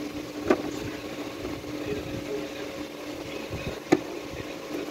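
Two sharp clicks, about half a second in and again near four seconds in, from the plastic air intake duct being unclipped and pulled off in the engine bay, over a steady background hum.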